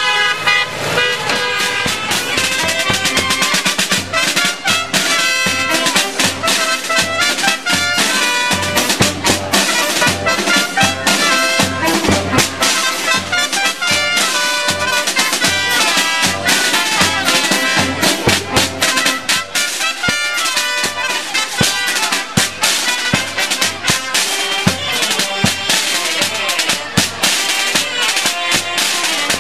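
Street brass band playing outdoors: trumpets and other brass carrying the tune over a steady, regular drum beat.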